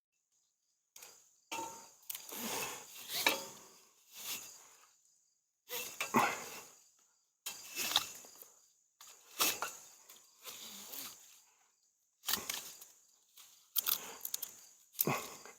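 A man panting heavily close to the microphone, a hard breath every second or two, winded from climbing and working on a deer stand. A thin steady high buzz of insects runs underneath.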